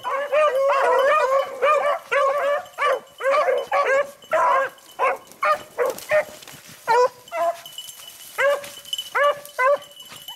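A pack of beagles baying as they run a rabbit: several hounds' short, arching bawls overlap thickly at first, then thin out about halfway to single calls with short gaps between them.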